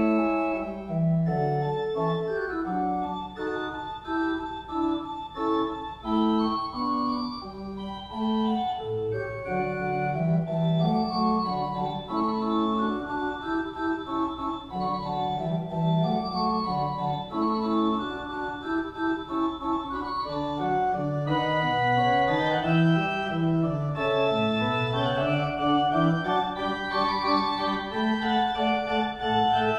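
Church pipe organ playing a slow, legato piece: held chords over a moving bass line.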